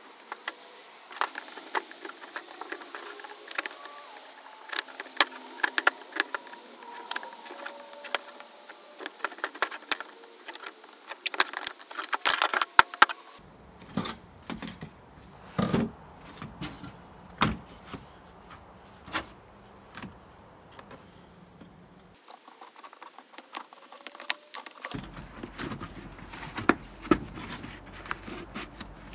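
Irregular clicks, knocks and rustles of a stiff black plastic plant pot being handled, cut and bent into a cone by gloved hands on a table, with a few sharper knocks in the middle.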